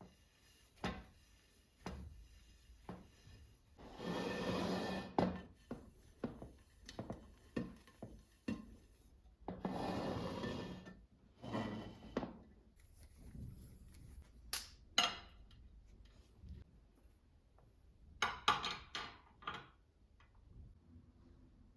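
Household handling sounds: two spells of rubbing or scraping, each about a second long, with scattered clicks and knocks of objects being set down or moved, a cluster of them near the end.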